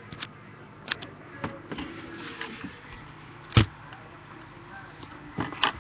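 Handling noise close to a computer's built-in microphone: a few light taps and rustles, with one sharper knock about three and a half seconds in and two more knocks near the end.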